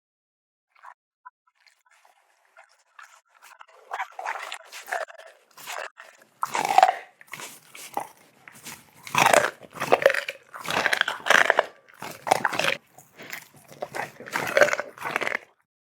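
A pet chewing and crunching on food in irregular bites. The bites are faint at first and come louder and closer together from about four seconds in.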